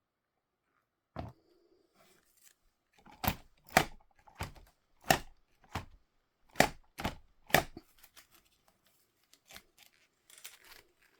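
Toy packaging being opened: a series of about nine sharp snips or clicks at an irregular pace, then a few fainter ones with light rustling near the end.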